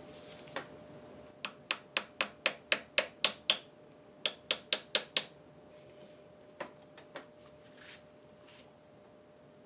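Rapid light hammer taps, about four or five a second: a run of about nine, a short pause, five more, then two single taps. They are driving a replacement part onto its pins on an Atlas horizontal milling machine.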